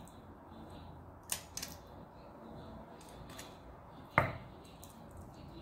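Metal tongs clicking and knocking against a stainless steel pot as raw pork pieces are set in it: a few light clicks, then one louder clink with a short ring a little past four seconds in.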